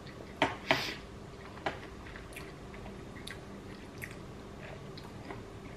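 Close-miked chewing and mouth sounds of someone eating sushi rolls, with two sharp clicks about half a second in and another just before two seconds, then scattered soft ticks.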